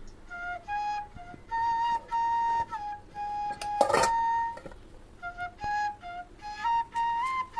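Background flute music: a single flute melody of held and shorter notes. A brief knock cuts through about four seconds in.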